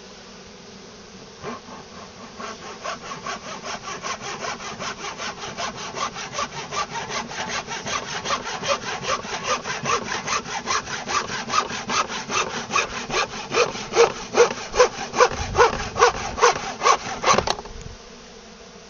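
Hand sawing through wood: a steady train of back-and-forth strokes that grows louder and stops abruptly near the end, with honeybees buzzing underneath.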